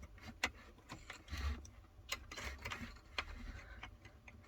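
Scattered light clicks and taps with brief rustling: plastic console trim and a wiring connector being handled and plugged back in.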